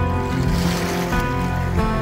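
Background music: sustained instrumental chords that change every second or so.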